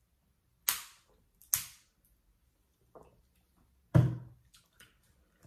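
Plastic water bottle crackling with two sharp pops about a second apart as it is drunk from, then a louder, heavier knock about four seconds in.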